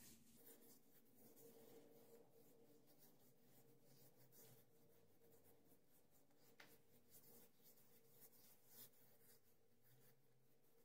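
Near silence, with faint scratchy rubbing of fingertips over oiled beard stubble as almond pre-shave oil is massaged in, and a couple of small clicks.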